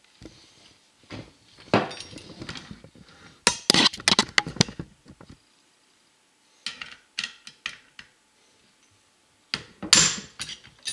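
Clicks, clacks and knocks of an SKS rifle being worked by hand, as the cleaning rod pushes the pin behind the trigger to release the trigger assembly from the wooden stock. The knocks come in short clusters with quiet gaps, the loudest about four seconds in and another near the end.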